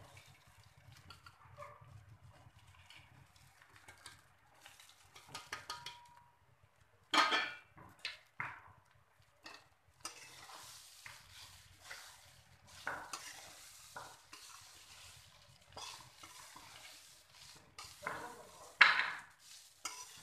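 A spatula stirring and turning soaked flattened rice (poha) in a metal kadhai, scraping against the pan with scattered strokes and a faint sizzle. There are two louder scrapes, about seven and nineteen seconds in.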